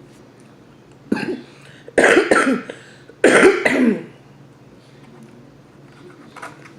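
A woman coughing three times: a short cough about a second in, then two louder, harder coughs with a throat-clearing quality.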